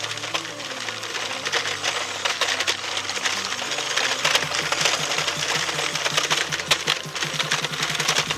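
Small radio-controlled Oshkosh truck's electric motor and gearbox running as it drives over rough dirt, a rapid mechanical rattle with clicking from the wheels and chassis. About halfway in it settles into a fast, even buzzing pulse.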